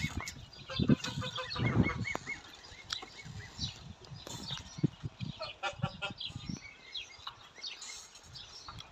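Young poultry peeping and calling, a run of short repeated calls in the first two seconds and scattered calls after. A few dull thumps come in the first two seconds as a blanket is pulled over a wooden brooder box.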